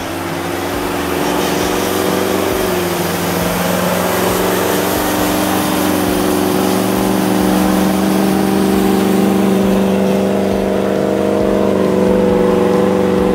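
Land Rover Discovery engine running steadily under load as the truck ploughs through deep snow, growing louder as it comes close and stepping up in pitch near the end.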